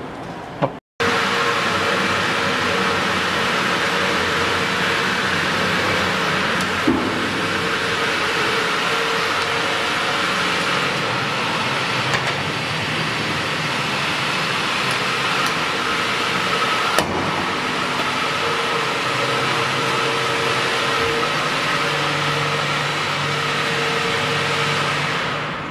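Vacuum membrane press machinery running with a loud, steady drone and faint hum, with a few light clicks.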